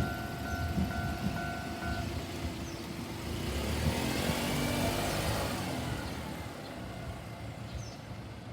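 Japanese railroad crossing warning bell ringing, which stops about two seconds in. Then a road vehicle drives past over the crossing, its sound growing and fading away.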